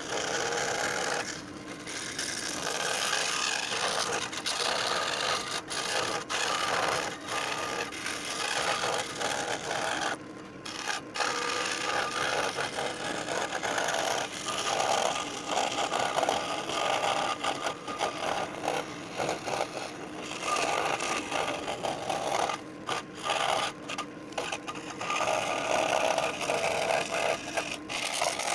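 Scroll saw blade cutting through wood, a steady rasping buzz with a few short breaks where the cut pauses.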